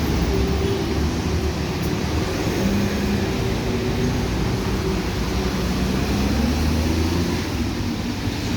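Steady running noise of a vehicle: a low engine hum under an even rushing noise.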